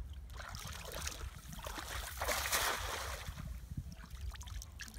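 A cast net thrown onto shallow, muddy canal water, hitting the surface with a splash that swells and peaks about halfway through, followed by lighter water sloshing.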